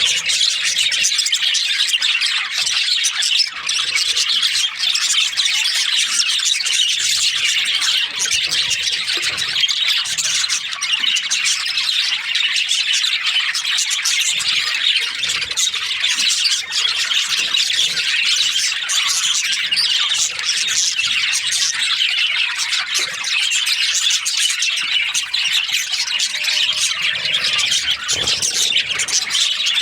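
Budgerigars chattering nonstop, a dense continuous mass of high calls with no pauses.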